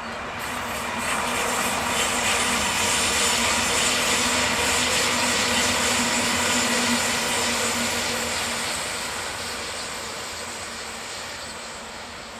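Electric double-deck passenger train running past on curved track: steady wheel-on-rail noise with a low hum, swelling about a second in and fading away as the train recedes.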